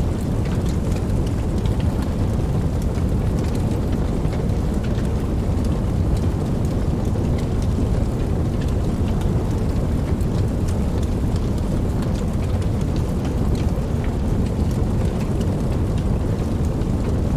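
Steady heavy rain, many separate drops ticking over a dense, even patter, with a deep continuous low rumble underneath.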